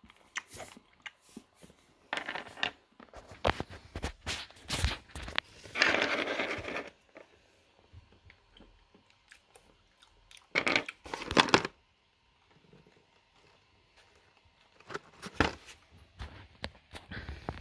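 Irregular crunches, crinkles and clicks in short clusters with quiet pauses between, from hard licorice candy being chewed and from the candies and the box's torn foil lining being handled.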